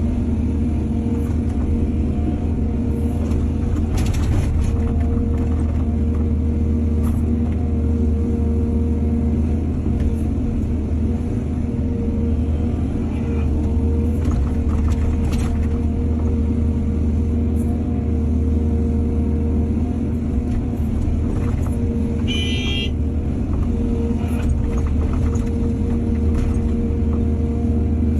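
Excavator's diesel engine running steadily under load, with scattered knocks and scrapes from the bucket and soil, and a brief high-pitched squeal late on.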